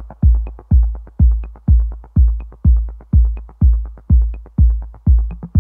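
Electronic dance music with a heavy kick drum about twice a second and light ticking between the beats.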